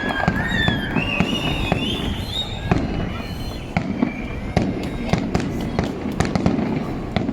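Fireworks going off: a quick run of sharp bangs and crackles, thickest from about four to six and a half seconds in, over a steady low rumble.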